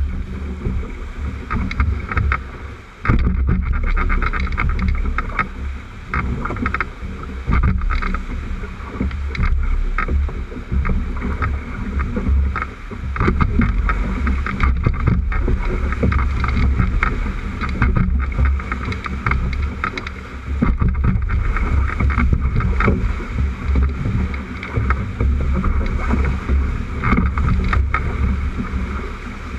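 Whitewater rapids rushing and splashing around a wooden drift boat as it is rowed downstream, with wind buffeting the camera microphone in a heavy low rumble.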